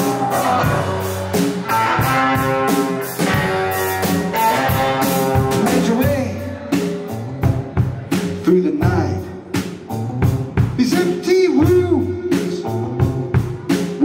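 Live band music: an acoustic guitar strummed over a drum kit, with a man's voice starting to sing a little over halfway through.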